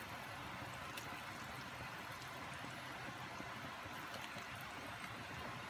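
Pot of miso sinigang broth boiling steadily: an even bubbling hiss.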